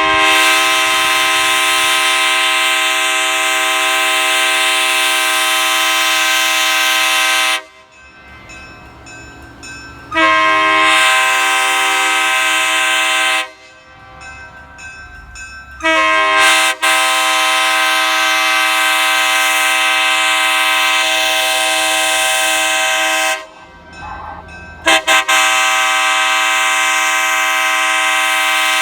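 Nathan K3HA three-chime locomotive air horn, a 1980s widefont horn with new internals, blown in four long blasts of its chord: about seven seconds, about three, about seven, then a fourth held on, with short pauses between. The last blast opens with a couple of quick stutters.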